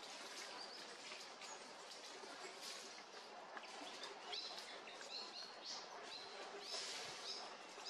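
Small birds chirping faintly over a steady outdoor hiss, with a run of short, repeated high chirps in the second half.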